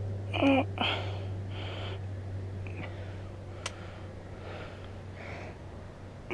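A man's short, noisy breaths through the nose and throat, two of them close together near the start, over a steady low hum, with one sharp small click a little past halfway.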